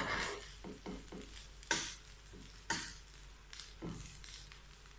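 A metal spoon stirring and scraping fried rice around a nonstick frying pan as it fries: quick short scrapes in the first second, then three louder strokes about a second apart.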